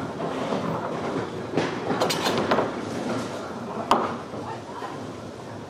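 Bowling alley din: balls rolling down the lanes with a steady rumble, a burst of pin clatter about two seconds in, and a single sharp knock near four seconds.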